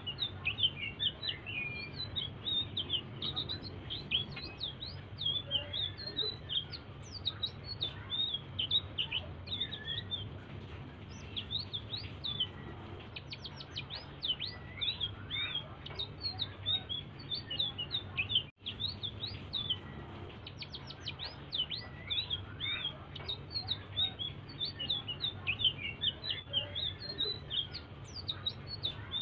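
A small songbird's soft, continuous song: rapid high chirps and short downward-sweeping notes in a fast, unbroken chatter, the kind of quiet song played to get other cage birds singing. A steady low hum sits underneath, and the sound cuts out for an instant about two-thirds of the way through.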